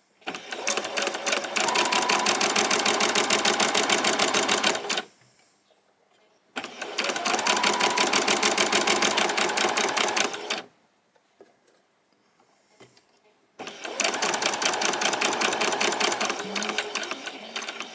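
Electric sewing machine stitching a seam, running in three spells of about four seconds each with a rapid, even stitch rhythm and short pauses between.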